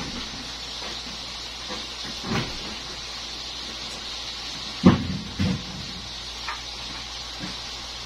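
Steady hiss with three dull knocks, the loudest about five seconds in, followed by a couple of faint clicks.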